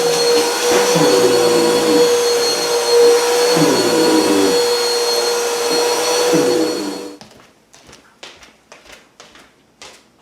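Vacuum cleaner running, with a steady motor whine and lower tones that sag in pitch about every second and a half. It is switched off abruptly about seven seconds in, leaving only faint light taps.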